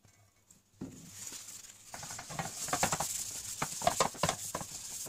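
A paper towel rubbing oil around a nonstick frying pan: a run of short scrubbing strokes that starts about a second in and grows louder.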